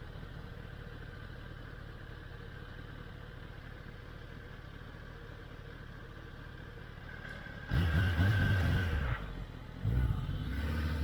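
2021 Kawasaki ZX-10R's inline-four engine idling steadily, then revving up sharply about eight seconds in and again near the end.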